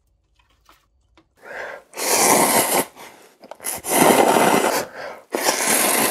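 A person letting out three loud, breathy exhalations, each about a second long, like heavy sighs.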